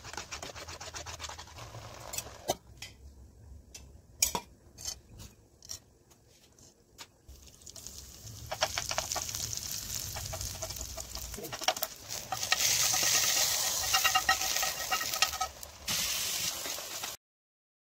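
A spoon stirs thick tomato paste in a pan. After some scattered clicks, whole spices and garlic sizzle and crackle in hot oil for a tempering, loudest in the second half, and the sound cuts off abruptly near the end.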